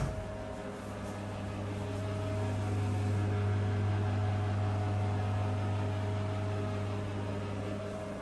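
Steady low electrical hum with fainter higher tones over it, a bathroom extractor fan running, growing a little louder for a few seconds midway and then easing.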